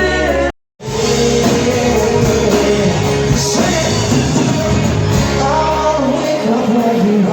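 A rock-pop song with a singing voice over a full band. It cuts out to silence briefly about half a second in, then carries on.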